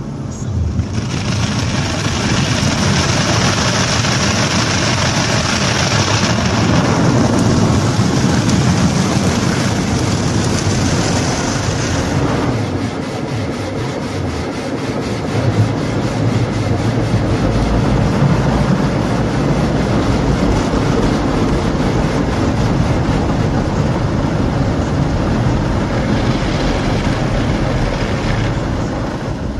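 Automatic car wash heard from inside the car: water spraying and brushes scrubbing over the foam-covered windscreen for about the first twelve seconds. Then a steadier, lower rushing noise.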